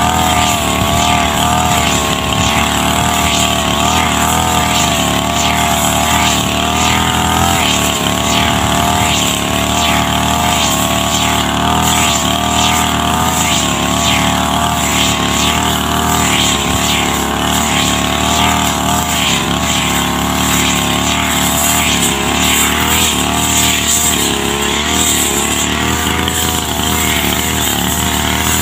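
Backpack brush cutter's engine running at a steady high speed while it cuts tall grass, its pitch wavering slightly as the load comes and goes.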